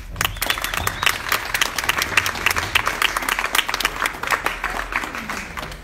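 Audience applauding, a dense patter of individual hand claps that tapers off near the end.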